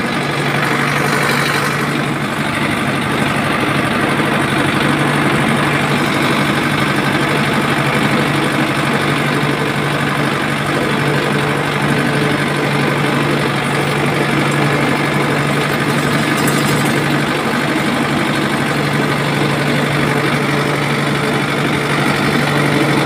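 Toy tractor running steadily, a continuous engine-like hum as it pulls a trailer across the concrete.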